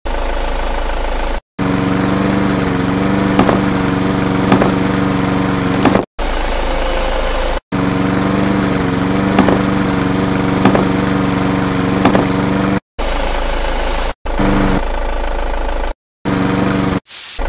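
Heavy-machine engine sound effect running at a steady idle, dubbed over the stop-motion. It comes in stretches broken by short silences every few seconds, with a few sharp knocks over the engine noise.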